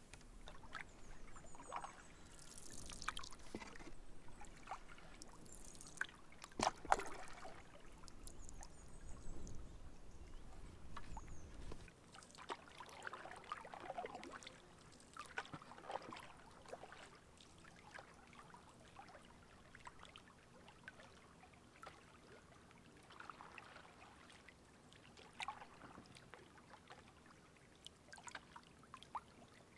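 Canoe paddling: water splashing and dripping off the paddle and lapping against the hull in irregular strokes, with a sharp knock about seven seconds in.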